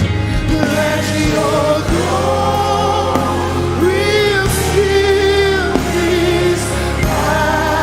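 Live gospel worship music: voices singing a slow, sustained melody over a band with steady bass and keys.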